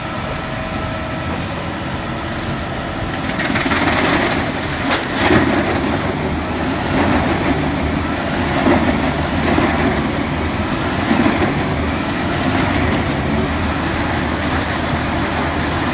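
Large wood chipper running on a big engine: a steady engine hum at first, then from about three and a half seconds in, louder noisy surges every second or two as wood is fed through and chipped.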